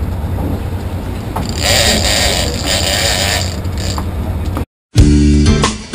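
Yacht's engines running with a steady low drone, with a louder rush of noise for about a second and a half near the middle. The sound cuts out briefly just before the end, and guitar music starts.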